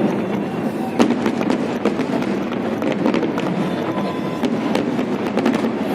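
Fireworks display: many sharp bangs and crackles in quick succession over a steady background din, with the loudest bang about a second in.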